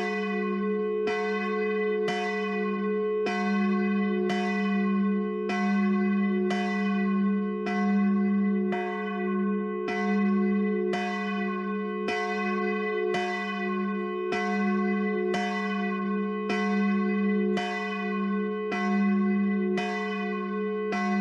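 A single church bell tolling in an even rhythm, struck about once a second, each stroke ringing on under the next. It has a strong low main tone and several clear, steady higher partials.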